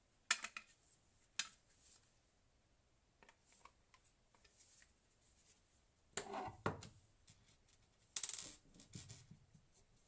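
Sharp clicks, then two short bursts of metallic clattering and clinking about six and eight seconds in, as small metal hardware is handled.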